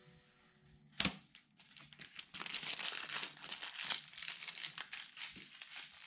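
Blue protective plastic film crackling and crinkling as it is peeled off sheet aluminium. One sharp crackle comes about a second in, then steady crackling.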